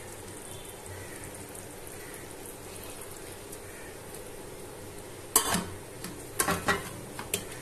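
A metal spoon knocks and scrapes against metal cooking pots as boiled rice is spooned onto cooked vegetables. A few sharp clinks come in the last two seconds, over a faint steady hiss.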